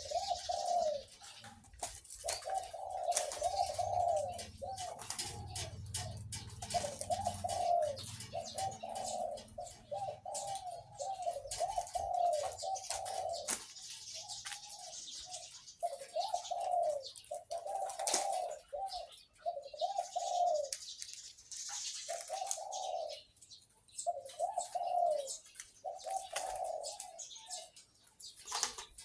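A captive-bred zebra dove cooing over and over, a run of short rolling coos with brief pauses between phrases; its deep voice is the trait it was bred for.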